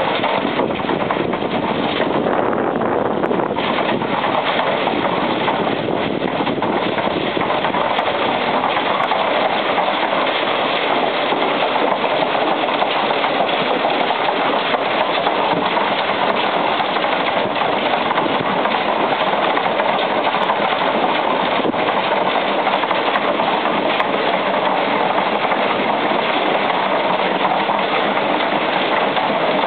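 Case VA tractor's four-cylinder engine running steadily while it drives a concrete mixer, the turning drum adding a steady churning noise.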